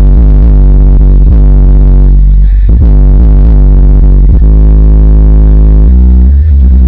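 Bass-heavy music played loud through two 10-inch Infinity car subwoofers with repaired cones, powered by a Bazooka mono-block amplifier. About four seconds in, the bass line settles into long held low notes.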